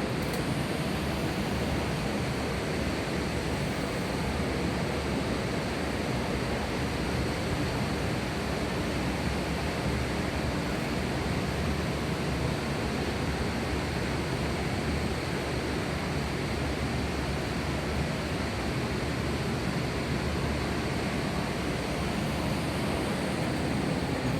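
Steady rushing of a river waterfall.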